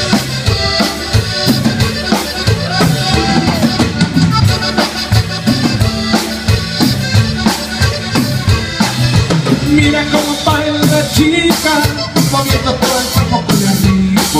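Live Tejano band playing a cumbia without vocals: accordion melody over a steady drum-kit beat and electric bass.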